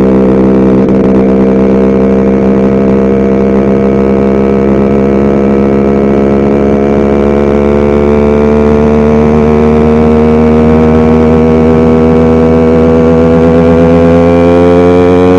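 Yamaha RX100's two-stroke single-cylinder engine running steadily, its pitch climbing slowly over the last few seconds as it picks up speed. The rider suspects this sound comes from a slightly lean mixture that needs carburettor tuning.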